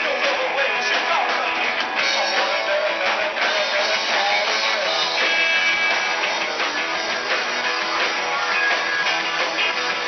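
Live rock band playing: electric guitars and a drum kit, with a singer on the microphone. The recording is thin, with almost no bass, as from a small camera's microphone.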